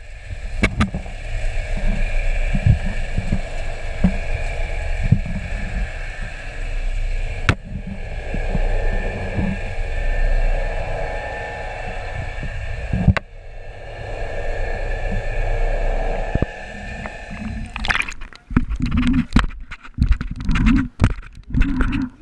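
Underwater sound through a waterproof camera housing: muffled water noise with a steady hum and occasional dull knocks. Near the end it breaks the surface, and irregular splashing and sloshing take over.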